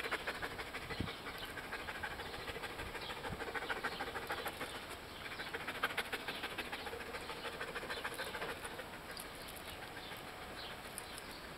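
A dog panting rapidly close to the microphone, in quick even breaths that are loudest at the start and again about six seconds in, then softer.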